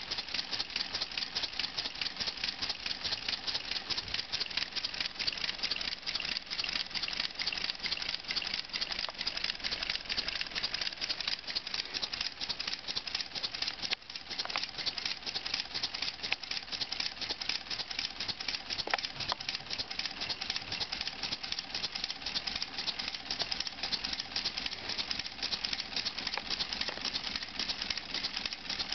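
LEGO two-cylinder pneumatic engine running at speed on compressed air: a rapid, continuous rattle of clicks as its cylinders cycle and the flywheel spins.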